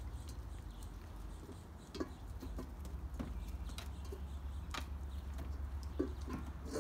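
Weimaraner puppies moving about on concrete and nosing a metal bowl: a few scattered light taps and clicks over a low steady hum.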